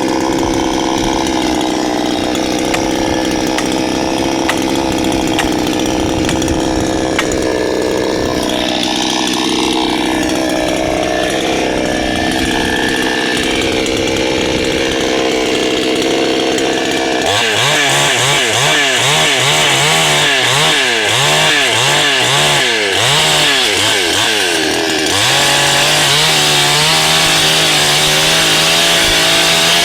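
Two-stroke chainsaw running at a steady speed, then a little past halfway starting to cut into wood: the engine note repeatedly sags and recovers under the load, then holds at a higher, steady pitch in the last few seconds as it cuts at full throttle.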